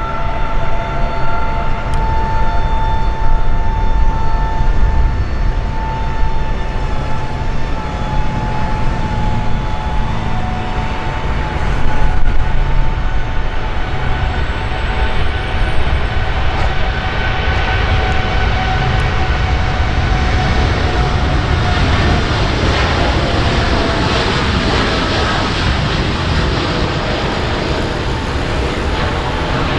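Jet aircraft noise: a loud, steady low rumble with a high whine. From about two-thirds of the way in it gives way to a broader, louder rush of jet engines as a Boeing 787-9 departs.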